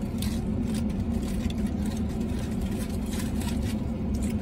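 Steady idling hum of a parked pickup truck, heard from inside the cab, with a few faint clicks over it.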